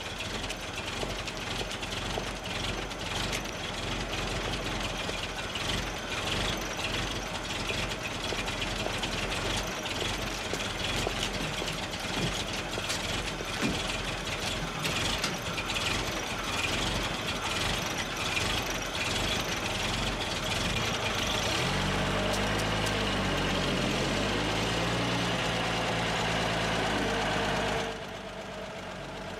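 Old military truck's engine running rough and uneven at the gate. About three-quarters of the way through the sound turns steadier, then drops suddenly near the end, leaving a quieter engine sound.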